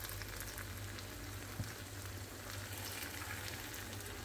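Kuymak cooking in a pan on low heat, its separated butter sizzling faintly with light crackles over a low steady hum. A soft knock about one and a half seconds in.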